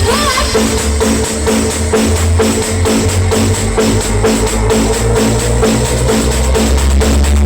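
Loud dance music with very heavy bass and a steady drum beat, played through a large stacked 'sound horeg' speaker rig during a sound check.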